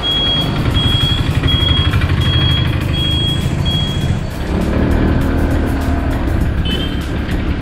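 Motorcycle riding through traffic with wind on the microphone, its turn-indicator buzzer beeping evenly about three times every two seconds during a right turn and stopping about four seconds in. The engine then pulls harder as the bike straightens up the street.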